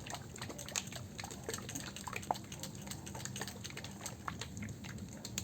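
A bottle of Liqui Moly Ceratec engine oil additive being shaken, the liquid sloshing faintly inside with small irregular clicks.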